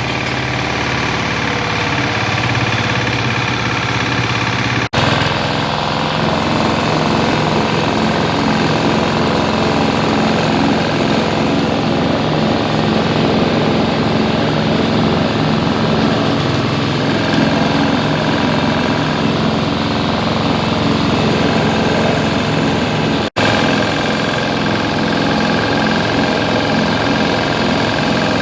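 Dacron fibre grinding machine running steadily: a continuous machine drone with a busy rattle. The sound breaks off for an instant twice.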